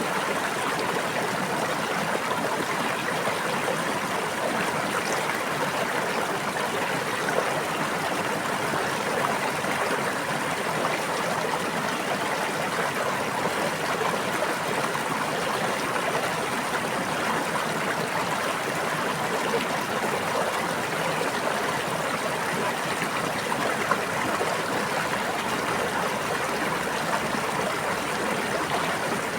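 A stream of water running and babbling steadily, without breaks or changes.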